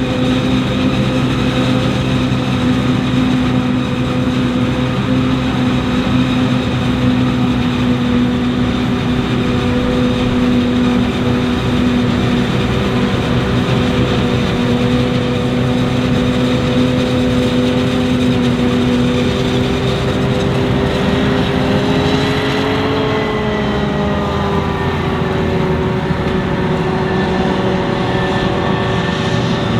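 Heavy diesel farm machinery running at steady high revs during maize harvesting, its pitch lifting briefly and then settling slightly lower about 22 seconds in as the load changes.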